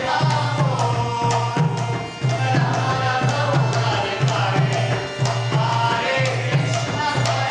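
Indian-style music: hand drums keep a steady rhythm under a melody that glides up and down, with a brief dip in loudness about two seconds in.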